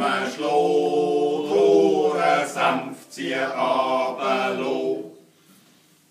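Schnitzelbank troupe singing a verse line together, unaccompanied, in Swiss German with long held notes. The singing stops about five seconds in.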